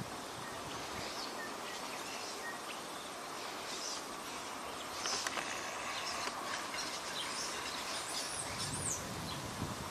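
Steady outdoor background hiss with small birds chirping, including a few quick high rising-and-falling calls near the end.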